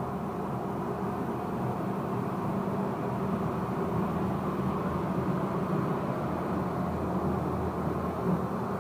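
A Randen (Keifuku Electric Railroad) tram standing at the platform with its onboard equipment running: a steady low drone with a few even hum tones.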